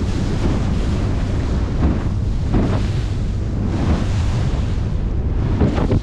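Inflatable boat running over choppy sea: steady loud wind on the microphone and water rushing along the hull, with stronger slaps of waves against the bow a little past halfway and near the end.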